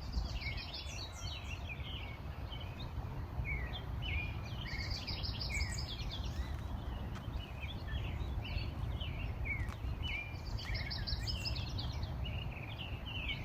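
Several songbirds chirping and singing: many short rising and falling notes, with quick trills of rapidly repeated notes about a second in, around five seconds in and again near eleven seconds. A steady low background rumble runs underneath.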